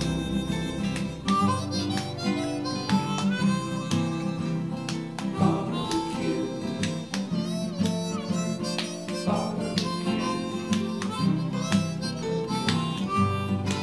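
Music: a harmonica playing a tune over guitar accompaniment.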